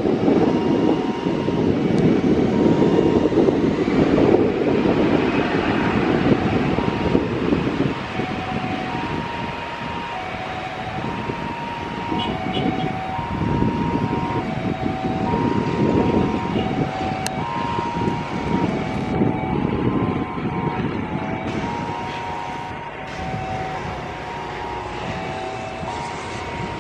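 Twin-engine jet airliner at takeoff thrust, heard from behind as it begins its takeoff roll: a deep, steady rumble, loudest for the first several seconds, then easing as the jet moves away. Passing road traffic is mixed in.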